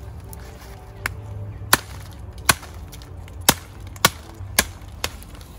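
Knife chopping through a whole roasted rooster laid on a leaf on the ground: about seven sharp chops at uneven intervals, a second or so apart, starting about a second in.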